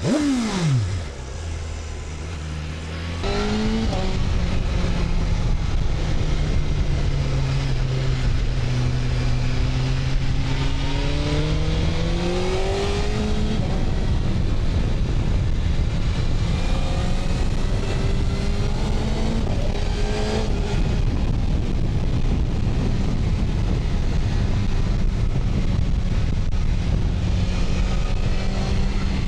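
BMW S1000RR inline-four engine under way with wind rush. The engine note falls steeply in the first second as the throttle closes and stays low briefly. About three seconds in it opens up and holds loud, its pitch sagging slowly and climbing again near the middle.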